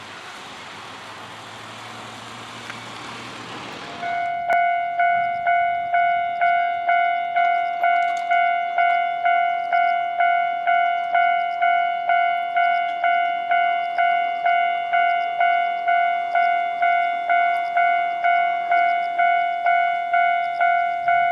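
Passing road-traffic noise, then about four seconds in a Japanese level crossing's warning bell starts ringing, a steady clang repeated about twice a second, signalling that a train is approaching.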